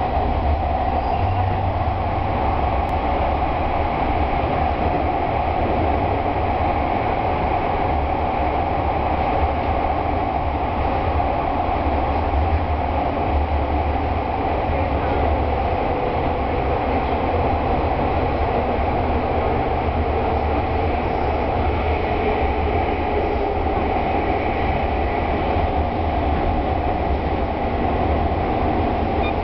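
Electric train running through a tunnel, heard from inside the front car: a steady rumble of wheels and running gear with a constant drone.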